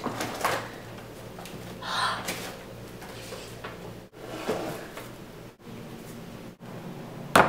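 Freezer door of a side-by-side refrigerator being opened and a plastic container pulled off a freezer shelf: a few separate knocks and rustles, then a sharp click near the end, over a steady low hum.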